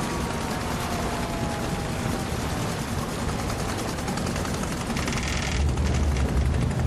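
An engine running, a loud low rumble with rapid popping. A falling whine fades out in the first seconds, and a short burst of quick rattling comes about five seconds in.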